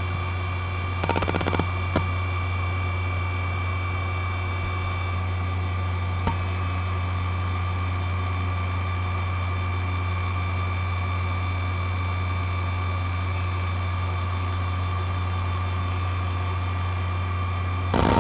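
ExcelStor CT210 3.5-inch IDE hard drive spinning at 5400 rpm with a steady hum and a thin whine. There is a short burst of head-seek chatter about a second in, and single seek clicks at about two and six seconds, as it is benchmarked.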